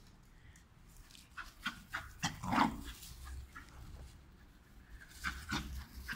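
Scottish terrier puppy and adult Scottish terrier at play, making a few short dog vocalizations: a cluster about a second and a half to two and a half seconds in, the loudest near the middle of it, and a few more near the end.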